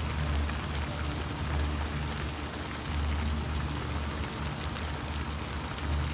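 Beef tendon and garlic chives sizzling and bubbling in a sauce in a frying pan, with a low hum underneath.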